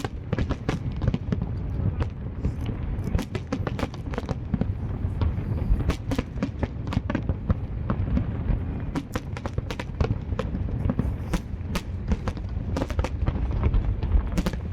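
Harbour fireworks display: many sharp bangs and cracks in quick, irregular succession over a steady low rumble.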